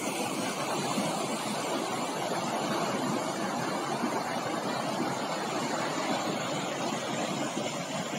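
River rapids rushing over and between rocks: a steady wash of turbulent white water.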